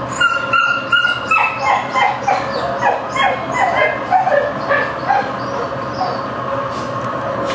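A dog in a shelter kennel yipping and whining, a rapid run of short high calls that each slide down in pitch, two or three a second, tailing off after about five seconds.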